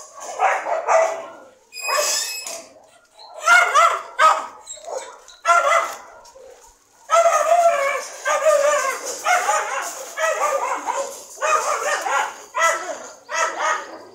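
Dogs barking and yelping in quick runs of calls, with a short pause about six seconds in.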